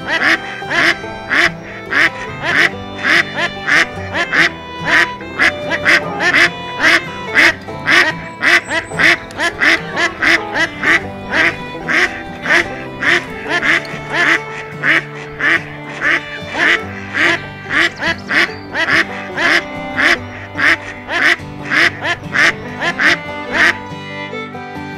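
Duck quacks repeated in a fast, even rhythm of about two a second over background music. The quacking stops near the end, leaving only the music.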